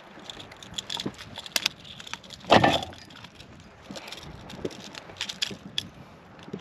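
Clicking and rattling as a freshly landed fish and its hooked lure are handled in a small boat, with one heavier thump about two and a half seconds in.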